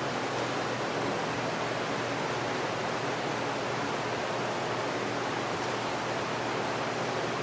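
Steady, even hiss with no change in level and no speech or other events.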